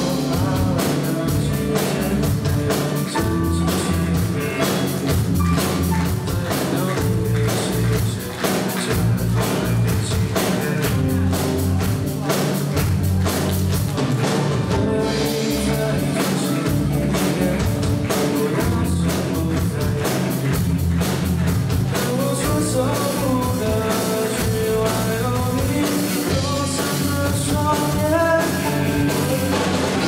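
Live rock band playing: drum kit keeping a steady beat under electric guitars and keyboard.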